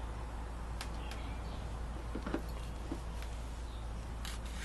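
A few light, separate clicks of small metal hardware being handled as the end of the opener belt is fitted to its connecting link, over a steady low hum.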